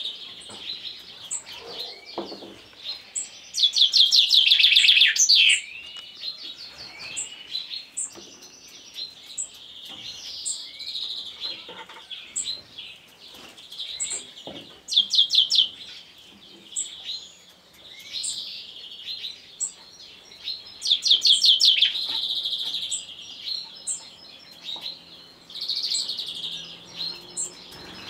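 Male chaffinch singing: three loud song phrases of fast repeated notes, the first ending in a falling flourish, with short chirps in between.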